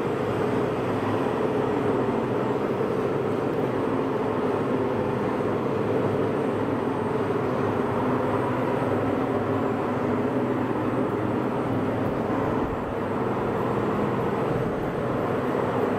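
Soft-biscuit production line running: the rotary moulder and conveyor machinery give a steady, even machine noise with a low hum and no breaks.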